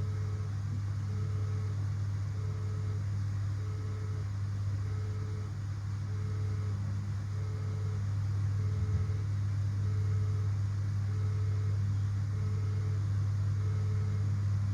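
A steady low hum with an electronic warning beep repeating about every 1.2 seconds, each beep about half a second long.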